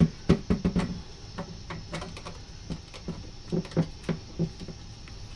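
Thin sheet-metal dryer vent pipe and elbow knocking and clicking as it is handled and fitted into place. There is a quick run of sharp knocks in the first second, then scattered lighter taps.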